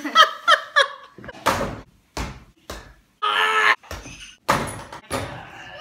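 A woman laughs in quick bursts for about a second. Then a mini basketball thuds several times, about six knocks, against an over-the-door hoop's backboard and the wooden door it hangs on. A short cry comes a little past halfway.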